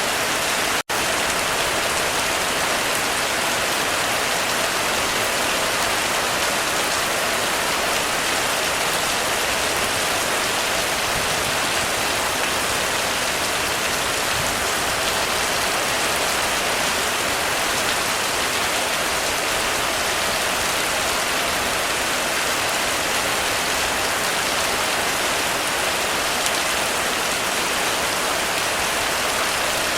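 Heavy rain falling steadily on a roof, an even hiss, with a split-second dropout in the sound about a second in.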